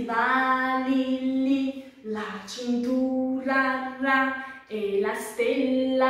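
A woman singing a children's song unaccompanied, in short phrases of held notes that step between a few pitches.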